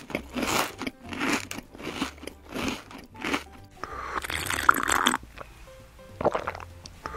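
Crunchy biting and chewing close to the microphone: a run of crisp crunches, about one every three-quarters of a second, then a longer crunch and one more bite near the end.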